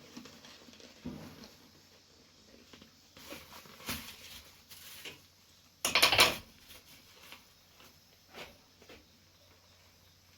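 Scattered small clicks and handling noises from hand work on a rubber boot, with a short cluster of sharp knocks about six seconds in, the loudest sound.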